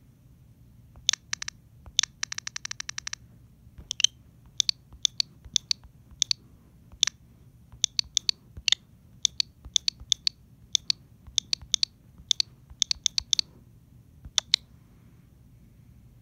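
A series of sharp, high clicks at irregular intervals, with a fast, even run of about a dozen clicks a second between about two and three seconds in.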